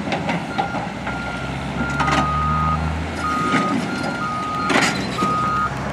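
Backup alarms of heavy construction vehicles beeping: two alarms at slightly different pitches, each sounding about once a second and overlapping, over the steady low running of diesel engines. A sharp clank sounds about two seconds in and a louder one near the end.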